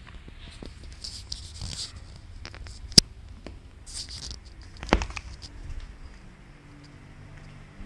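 Handling noise of a plastic power bank being turned over in the hand: light rustling and scattered small clicks, with one sharp click about three seconds in and a heavier knock about two seconds later.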